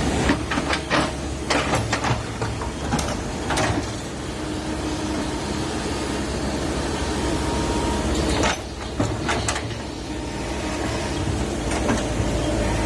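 Komatsu PC130 hydraulic excavator's diesel engine running steadily under digging work. A series of sharp knocks and clanks from the machine working comes in the first few seconds and again about two thirds of the way through.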